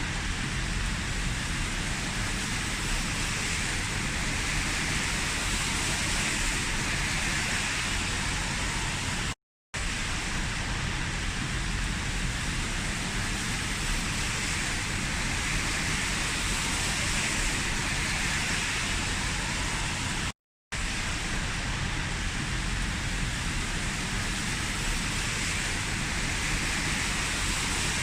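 Heavy rain falling steadily in an even hiss. It cuts to silence for a split second twice, about ten and twenty seconds in.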